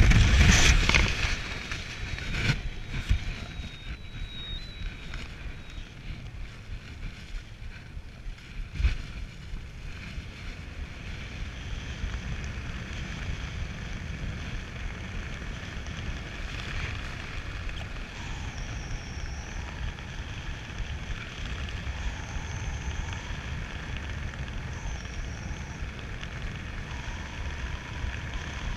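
Wind buffeting the microphone high in the air: a louder rush dies down about a second in, leaving a steady low rumble.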